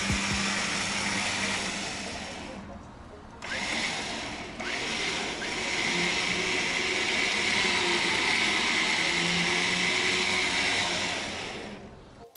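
Flatbed tow truck's winch running steadily as it pulls a car that cannot be driven up the tilted bed. It fades out briefly about three seconds in and again near four and a half seconds.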